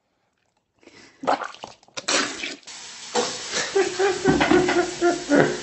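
Water running from a tap into a sink, with knocks and clatter over it. It starts after about a second of silence.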